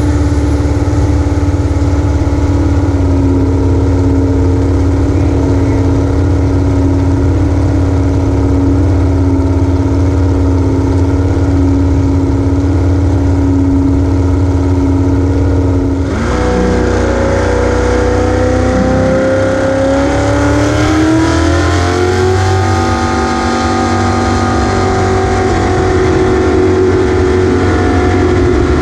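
Race jet boat's engine running hard at steady high revs. About halfway through, the note changes, then climbs steadily over several seconds before levelling out again.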